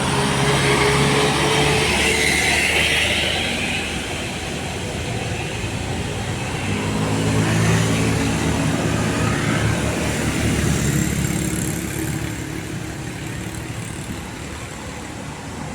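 Road vehicles passing on an uphill road, their engines working under load. The engine sound swells about a second in and again around eight seconds in, then fades.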